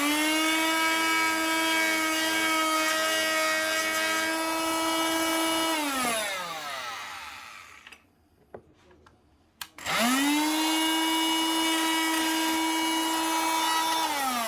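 Mac Allister MSMT300QC electric oscillating multi-tool run twice. Each time it spins up to a steady high-pitched whine, holds for about five seconds and winds down as it is switched off. A couple of clicks fall in the pause between the runs.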